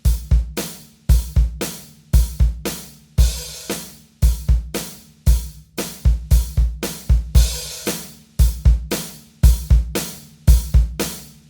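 Background music: a drum-kit beat with heavy kick drum, snare and hi-hat cymbals in a steady rhythm.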